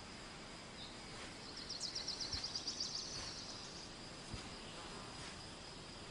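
Meadow insects, crickets or grasshoppers, making a steady high trill, with a louder, rapidly pulsing chirp starting about two seconds in and lasting about a second.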